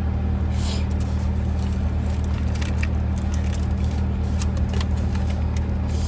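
Steady low hum of a car running, heard inside the cabin, with scattered short crackles and clicks over it.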